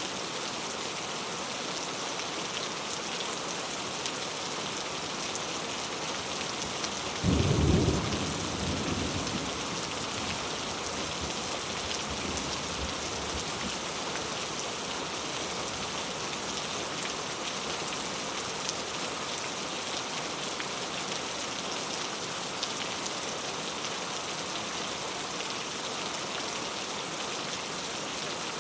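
Steady rain ambience, with a single low thunder clap about seven seconds in that is loudest at its start and rumbles away over the next couple of seconds.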